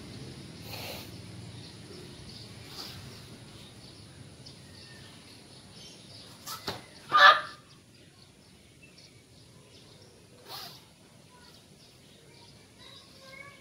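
A boy's single short, sharp kiai shout on a karate kata's final technique, about seven seconds in, just after a couple of quick knocks. Faint bird chirps follow near the end.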